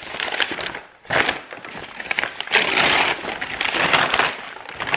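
A large brown paper bag crinkling and crackling as hands unfold it and pull it open, loudest about halfway through.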